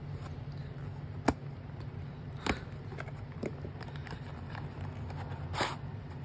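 Beyblade packaging being handled and opened by hand: a few short, sharp clicks and taps spread over several seconds, over a steady low hum.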